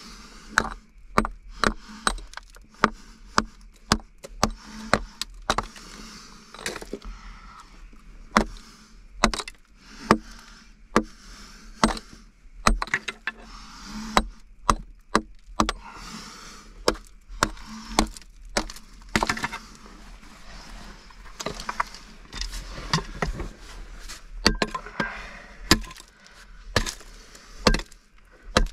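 Repeated sharp strikes, about two a second at an uneven pace, like a tool hitting wood or rock.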